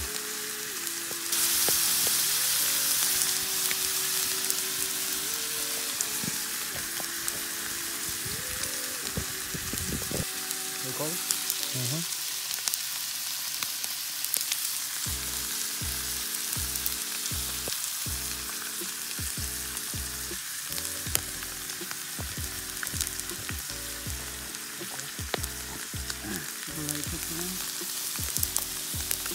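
Beef steaks sizzling as they fry in a cast-iron skillet over a campfire, a steady hiss that grows louder about a second in.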